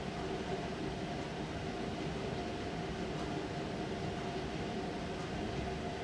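Steady low rumbling noise with a faint constant hum, unchanging and without distinct events.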